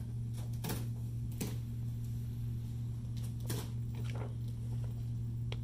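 A steady low hum, with a few faint, light clicks and rustles of small plastic game pieces and bags being handled on a table.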